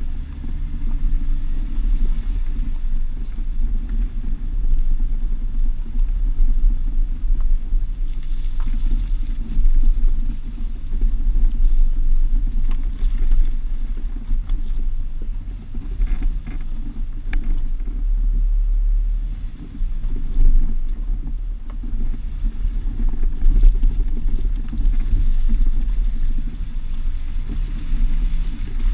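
Jeep driving, heard from a camera on its driver-side mirror: a steady low rumble of engine and wind on the microphone, with a few brief knocks now and then.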